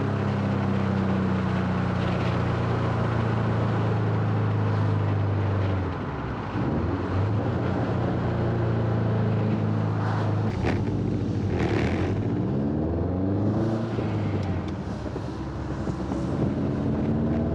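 Subaru WRX STI's turbocharged flat-four engine and exhaust heard while driving, holding a steady note. About six seconds in, and again around 13 seconds, the pitch falls and climbs again as the car changes gear and speed.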